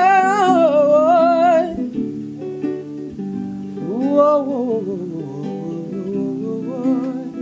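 Acoustic guitar accompaniment under a song, with a held sung note wavering in vibrato that ends about two seconds in, and a short wordless sung glide rising and falling near the middle.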